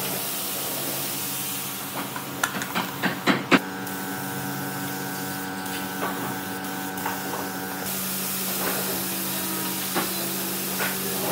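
Air spray gun hissing as it sprays finish onto bare wood, over a steady low hum. A run of sharp clicks and knocks comes a couple of seconds in, and the hiss eases off for a few seconds in the middle before it returns.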